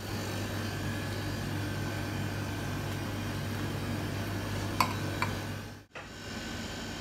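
Steady low machine hum with two short sharp clicks about five seconds in, cut off abruptly a little before the end.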